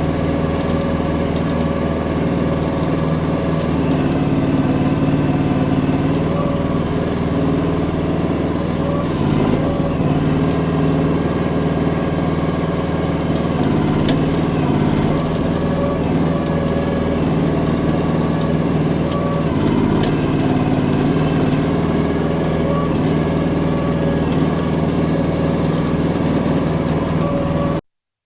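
Chinese mini excavator's engine running steadily while it grades dirt. The sound stops abruptly near the end.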